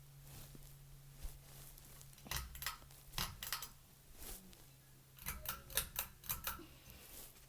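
Ceiling fan pull-chain switch being tugged: two quick flurries of clicks and chain rattle, about two seconds in and again about five seconds in, over a steady low hum.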